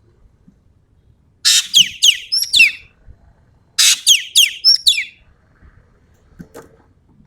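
Sumatran ekek keling calling in two bursts, each a harsh rasp followed by three or four sharp, high whistled notes that fall steeply in pitch. The bursts come about a second and a half in and again near the middle.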